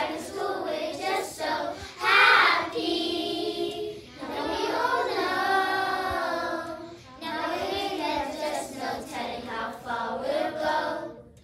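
A group of primary-school children singing together in several phrases with short breaks between them; the singing stops shortly before the end.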